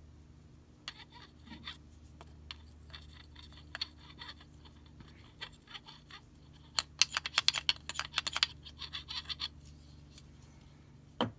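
Steel screwdriver shank being magnetized: light scraping and ticking strokes, then a dense run of sharp metallic clicks about seven seconds in.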